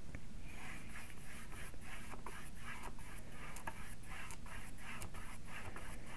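Paintbrush stroking and scraping acrylic paint across a hardboard panel in short, scratchy, repeated strokes, about two or three a second.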